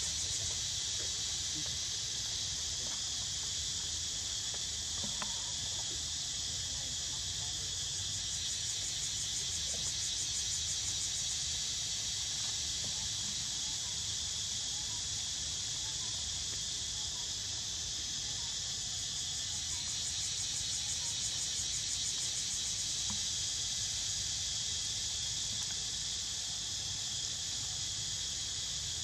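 Steady, high-pitched chorus of insects with a fine rapid pulse, swelling a little at times, over a low rumble.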